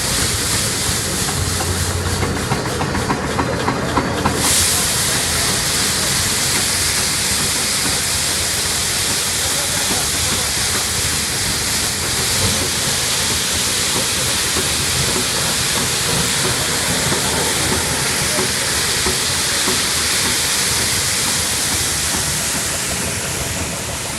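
Rotating brush of a forklift-mounted road sweeper scrubbing the pavement: a loud, steady hiss that starts abruptly about four seconds in, over the forklift's engine running.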